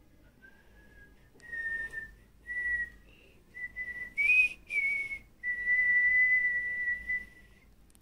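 Whistling: a slow series of short, clear notes at much the same pitch, one of them higher and breathier near the middle, ending on one long held note of about two seconds.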